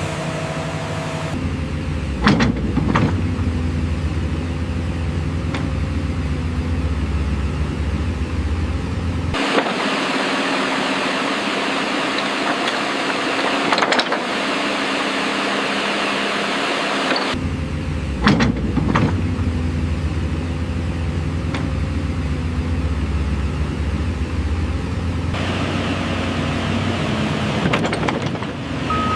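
Heavy diesel machinery, an excavator's engine, running steadily with a few sharp metallic knocks. In the middle there is a stretch of even hiss without the engine's low drone, and then the engine sound returns.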